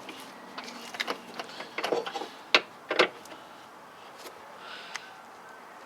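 Irregular sharp metallic clicks and taps of a hand tool working inside a car door, about seven spread over a few seconds, as a Torx T30 bit loosens the screws clamping the window glass to the regulator.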